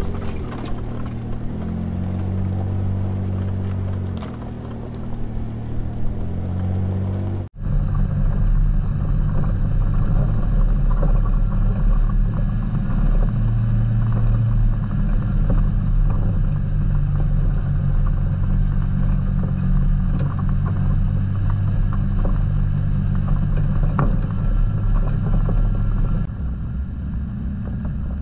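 Off-road vehicle's engine droning while driving, its pitch shifting up and down over the first seven seconds. A sudden break comes about seven and a half seconds in, then a steadier drone with heavy low rumble.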